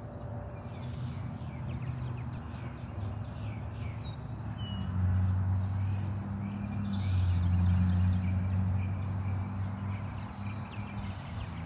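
Outdoor garden ambience: small birds chirping over a low steady hum that swells to its loudest in the middle and fades near the end.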